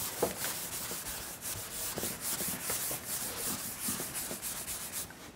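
A cloth wiping chalk off a blackboard in quick back-and-forth strokes, several a second, stopping near the end.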